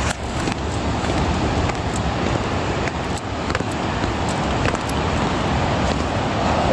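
Steady wind rushing over the microphone, with a few footsteps on a stone path about a second apart.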